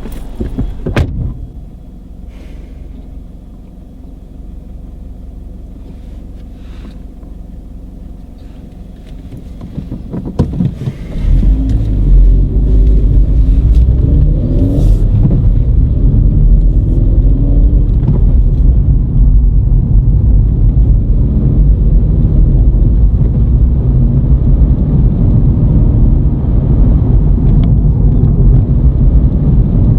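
Car running: a low rumble with a couple of knocks about a second in, growing much louder about eleven seconds in as the car pulls away and drives on.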